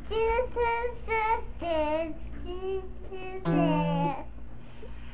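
A toddler singing a wordless tune in short high-pitched phrases, the pitch sliding up and down. A low guitar note rings briefly under the voice partway through.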